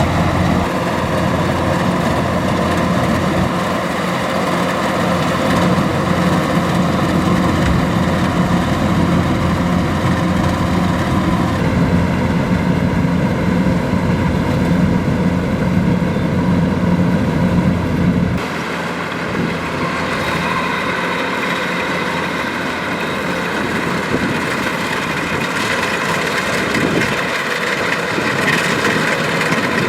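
Kubota DC-105X rice combine harvester running steadily, its diesel engine droning with several steady tones. The sound shifts about twelve seconds in, then turns quieter and thinner in the low end about eighteen seconds in.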